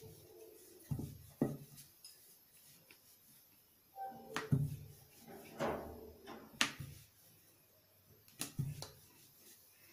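Wooden rolling pin rolling wheat dough on a granite rolling board: faint rubbing with a scattering of light knocks.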